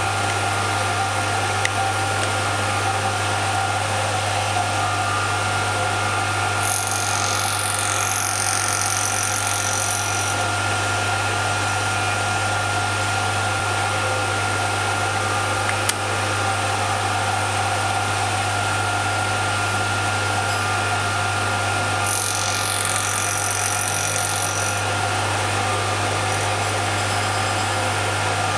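Motor-driven wheel-cutting spindle on a watchmaker's lathe running with a steady hum while cutting teeth in a brass clock wheel. Twice, about 7 seconds in and about 22 seconds in, the cutter bites into the brass for three or four seconds with a high, falling whine.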